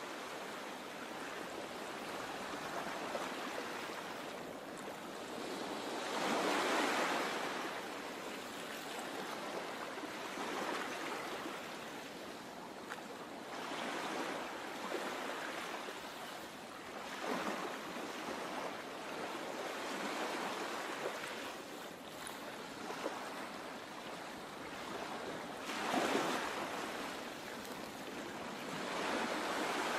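Sea water rushing and washing, a steady wash of waves that swells louder every several seconds.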